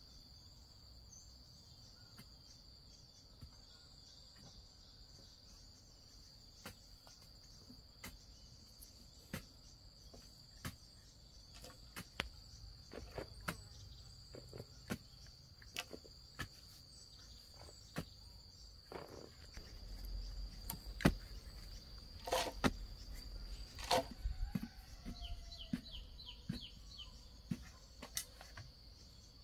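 Insects chirping in a steady high trill, with scattered sharp clicks and knocks throughout; a few louder knocks come about three quarters of the way through.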